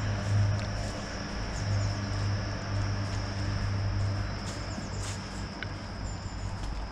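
Outdoor woodland ambience: a steady low hum that fades somewhat about two-thirds through, with a few short high bird chirps in the second half.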